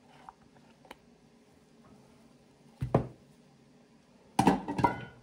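Handling noise in a quiet kitchen: a soft thunk about three seconds in as a silicone spatula is laid on a granite counter, then a louder burst of knocks and rubbing near the end as the phone camera is picked up and moved.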